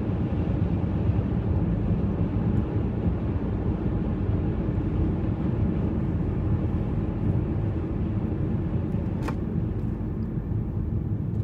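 Steady low rumble of a running car, heard from inside its cabin.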